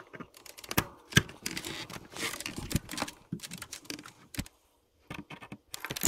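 Irregular clicks, taps and scrapes of a hand tool working against the metal pinion gear and motor mount of a Traxxas X-Maxx as the new pinion's set screw is tightened.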